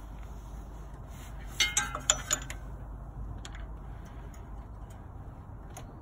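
A cluster of sharp metallic clinks with a short ring, about a second and a half to two and a half seconds in, then a few single light clicks, over a low steady hum.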